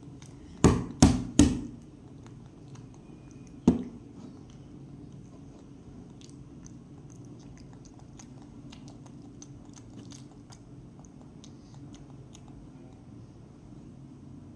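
Eggs and plastic steamer baskets handled on a tabletop: three sharp knocks in quick succession about a second in and another a few seconds later, then faint small clicks and taps.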